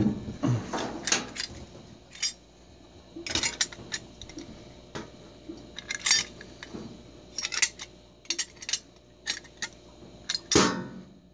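Small open-end wrench clicking and scraping against the brass body and gauge fitting of a CO2 regulator while the pressure gauge is worked loose: irregular metallic clinks and taps, the loudest near the end.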